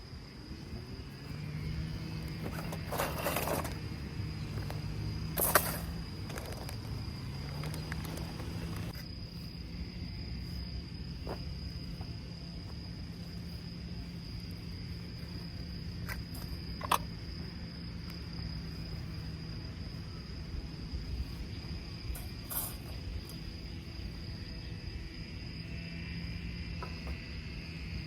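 Insects giving a steady high-pitched trill, over a low steady hum, with scattered rustles and clicks; the loudest is a sharp click about five and a half seconds in.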